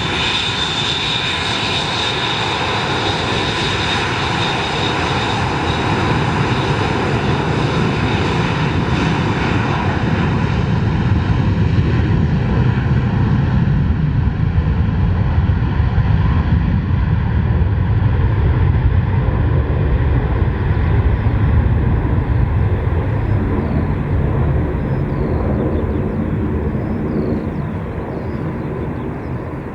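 Boeing 727 jet engines, three Pratt & Whitney JT8D turbofans, with the aircraft passing and moving away. A loud high whine at the start fades and slides slightly lower. A deep rumble builds through the middle, then eases off toward the end.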